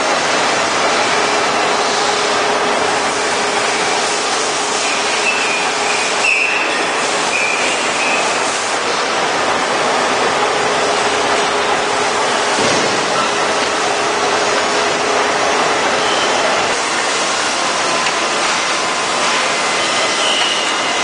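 Crankshaft pin milling machine cutting: a steady, dense machining noise with faint whining tones that come and go.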